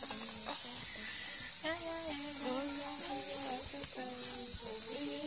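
Field recording of African Pygmy music: a steady high-pitched chorus of crickets, with soft voices singing long, gliding notes beneath it.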